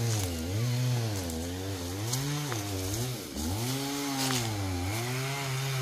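A small engine running, its pitch rising and falling smoothly about once a second throughout.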